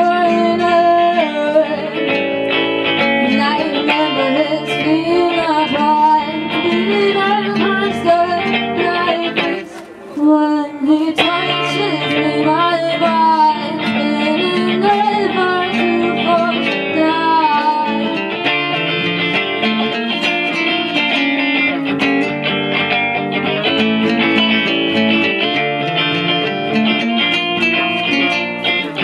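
Live guitar-led band music from a stripped-back set, with a melody line that bends and wavers in pitch over the chords. It drops off briefly about ten seconds in, then picks straight back up.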